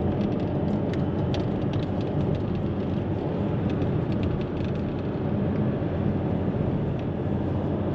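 Inside a moving car's cabin: steady engine and tyre noise from driving along the road.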